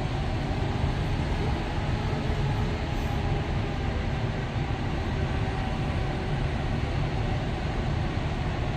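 Airbus A380's four jet engines at taxi power as the airliner rolls slowly toward the gate: a steady low rumble.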